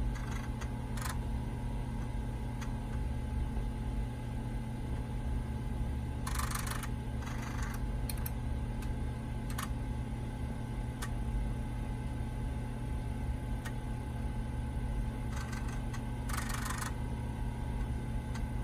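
Two TRS-80 Model I 5.25-inch Mini Disk floppy drives running during a disk backup: a steady hum of the spindle motors with scattered single ticks of the heads stepping. Four short bursts of rapid head-seek chatter come in two pairs, one pair about a third of the way in and one near the end.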